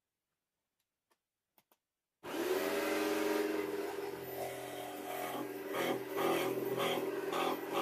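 A homemade benchtop saw with a narrow vertical blade switches on about two seconds in after a few faint clicks and runs steadily. From about five seconds it is cutting plywood, and the sound surges unevenly as the board is fed into the blade.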